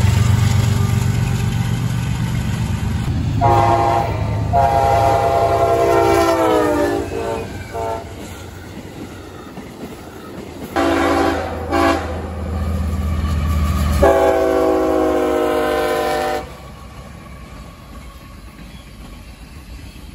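Diesel freight locomotives' air horns sounding over the rumble of a passing freight train: a long blast that falls in pitch near its end, then two short blasts, then another long blast.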